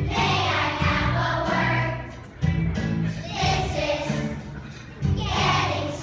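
A group of young children singing together over a musical accompaniment, in phrases that start afresh about every two and a half seconds.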